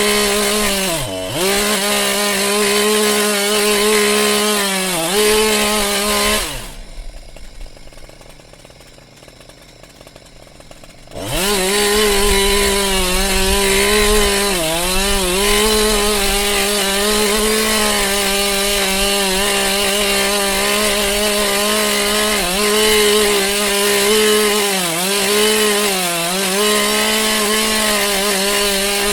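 Chainsaw running at high throttle while cutting into a tree, its pitch dipping briefly several times as the chain loads up in the wood. About six seconds in it drops to a quiet idle for about four seconds, then revs back up and cuts on.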